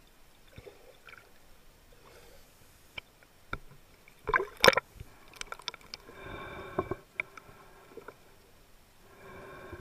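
Water and handling noise picked up by a camera filming underwater: scattered clicks and knocks, a loud cluster of knocks about four and a half seconds in, and two spells of gurgling water, one in the middle and one near the end.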